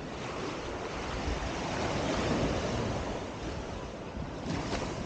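Surf breaking on the beach, a rush of noise that builds and fades over a few seconds, with a shorter rush near the end. Wind rumbles on the microphone.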